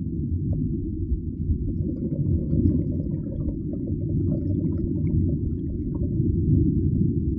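Underwater ambience: a steady, muffled low rumble, with faint scattered crackling clicks above it.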